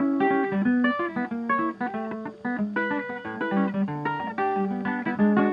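Background music: a fast acoustic guitar piece of quick plucked notes and strums.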